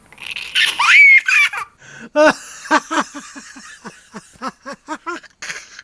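Laughter: a loud squealing burst first, then a long run of short, even 'ha-ha-ha' pulses, about four a second, growing softer toward the end.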